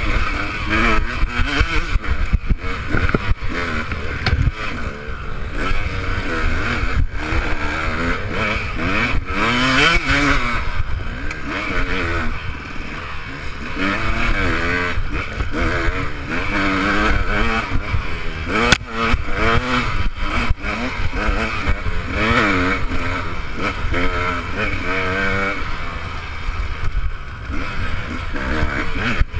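Enduro dirt bike engine revving up and down again and again while being ridden, its pitch rising and falling every second or two.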